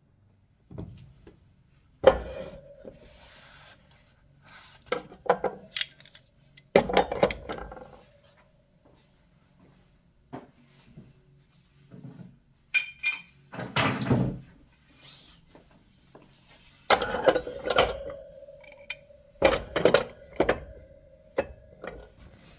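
Metal hand tools being handled and set down on a hard surface: irregular clanks and knocks, several followed by a lingering metallic ring.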